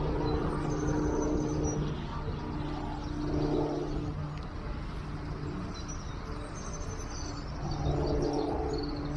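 Minelab CTX 3030 metal detector sounding a low, steady target tone that cuts in and out as the coil is swept: on for about two seconds, again briefly a little later, and back near the end. Faint bird chirps and a low rumble of wind on the microphone run underneath.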